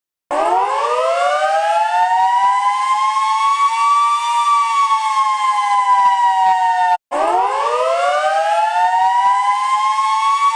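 Outdoor emergency warning siren winding up from a low growl to a steady high wail of several tones at once. It cuts off abruptly about seven seconds in and winds up again.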